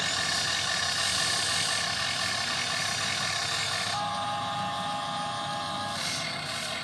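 Radio-controlled model excavator running: small electric motors and gears whining steadily, with a clearer steady whine from about four to six seconds in as a motion is held.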